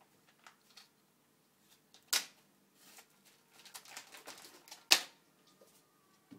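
A Somali cat rummaging in a kitchen cupboard: two sharp knocks, about three seconds apart, with light rustling and clattering between them.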